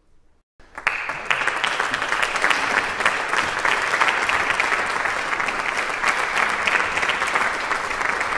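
Audience applause breaking out abruptly under a second in, after a moment of near silence, then continuing as steady, dense clapping.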